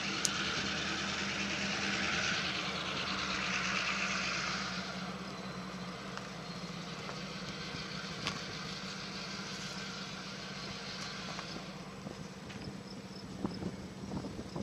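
A steady engine hum, with a louder rushing noise over it that fades away about five seconds in.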